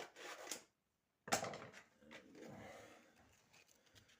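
Sandpaper being handled as the grit is changed to 240: a short rustle, then a sudden louder crinkle about a second in that fades over about two seconds, followed by a few small clicks.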